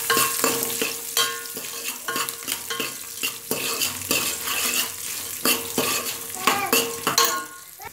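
Hot oil sizzling in a stainless steel pot as peanuts, gram dal, curry leaves and crushed garlic fry for a tempering. A steel spoon stirs and scrapes, clinking against the pot, which rings after the strikes. The stirring stops just before the end.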